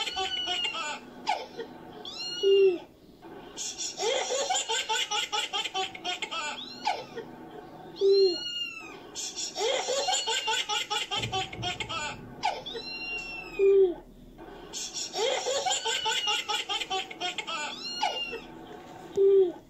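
A looped laughter sound effect that repeats the same round about every five and a half seconds. Each round is a run of rapid giggling pulses followed by a short, louder note.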